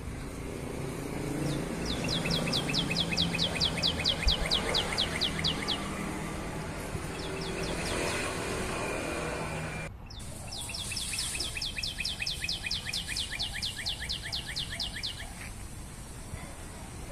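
A bird singing a fast trill of evenly repeated short high notes, about five a second, twice for about four seconds each, over low background noise.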